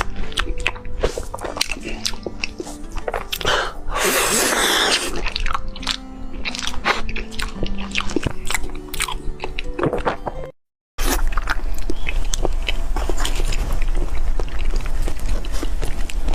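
Close-miked eating of soft desserts: biting, chewing and mouth smacks, heard as many small clicks, over background music. A second-long burst of noise comes about four seconds in. After a short cut to silence about ten seconds in, the chewing and smacking continue without music, over a low hum.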